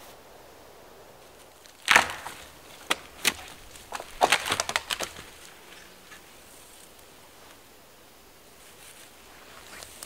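Dry wood cracking and snapping. One loud crack comes about two seconds in, two more follow about a second apart, then a quick run of cracks about four seconds in.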